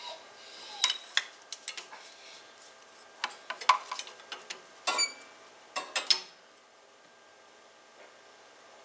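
Wrench clicking and clinking on the steel injector fuel-line fittings of a John Deere 5400 diesel engine as they are tightened back up after bleeding air from the fuel system. There are scattered sharp metallic clinks over the first six seconds, one of them ringing briefly about five seconds in.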